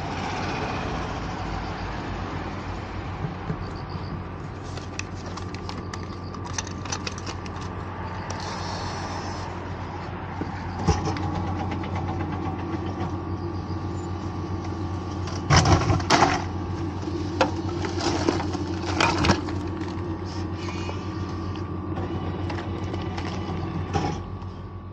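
Steady machine hum over street noise from a frozen ramen vending machine, broken by a handful of sharp clunks and knocks in the middle as a boxed frozen ramen is bought and taken from the delivery bay.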